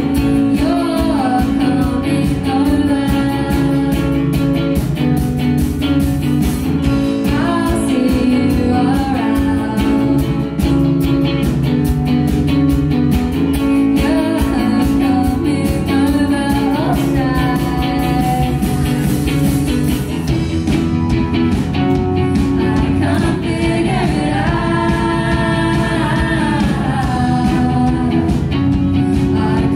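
A rock band playing live: a woman sings a melody over guitar, bass guitar and drums keeping a steady beat.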